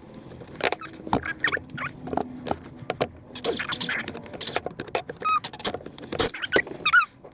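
Irregular clicks and knocks of plastic and metal chainsaw parts being handled while the fuel lines are worked back on, with a few short, high squeaks.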